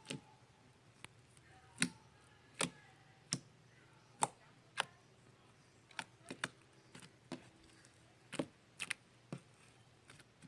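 Fluffy slime being squished and stretched by hand, giving off scattered sharp pops and clicks at irregular intervals.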